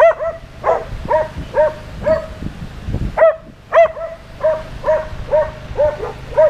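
A dog barking repeatedly, about two barks a second, with a short pause about halfway through.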